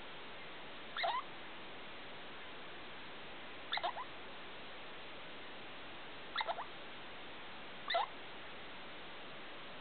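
A degu giving short squeaking calls, four times a couple of seconds apart, each a quick run of two or three rising squeaks.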